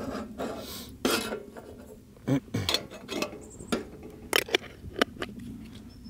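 Dishes and pots clattering and scraping as they are handled, in a string of sharp knocks, the loudest about a second in and again around the middle.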